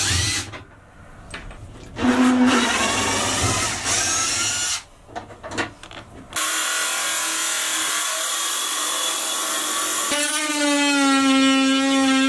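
Cordless drill-driver whirring in short runs with pauses, backing screws out of trim. From about six seconds a handheld power tool runs steadily, cutting access holes in the bed panel. It settles into a strong steady buzz near the end.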